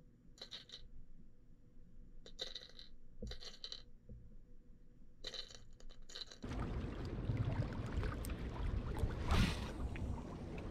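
Faint clicks heard through water, in short clusters every second or two. About six and a half seconds in it switches abruptly to a steady rush of wind and lapping water at the shore, with a loud swish near the end.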